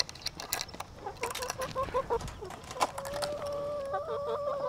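Chickens clucking with short calls, then one hen giving a long, drawn-out call from about three seconds in. Early on there are light clicks and rattles from the wire run's door being opened.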